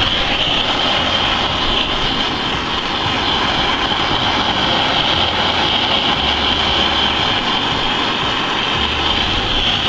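Hand-held gas torch burning with a steady hiss as its flame is played over the gouged polyethylene keel of a canoe to heat the plastic.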